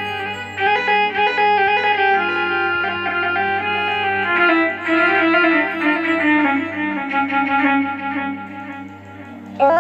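Electronic keyboard playing a rababa (bowed Bedouin fiddle) sound patch: a slow, ornamented ataba/mawwal-style melody with sliding notes over a steady low drone. The line works its way downward through the middle and dips in level just before a new phrase comes in at the end.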